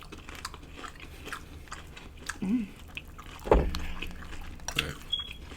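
A person biting and chewing crunchy battered deep-fried seafood close to the microphone, with scattered crisp crunches and clicks. A brief low hum about two and a half seconds in, and a loud thump about three and a half seconds in.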